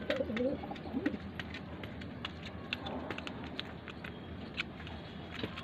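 Domestic pigeon cooing in low, wavering notes during the first second or so, followed by scattered light clicks and taps.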